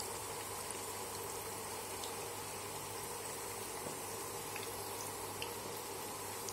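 Spring rolls deep-frying in hot oil in a kadai: a steady sizzle dotted with small crackles and pops.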